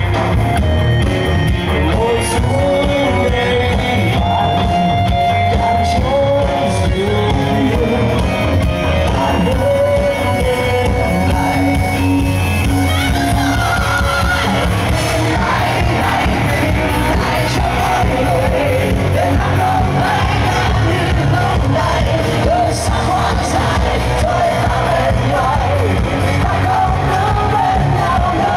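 Rock band playing live at a steady, loud level, with a lead voice singing over the band.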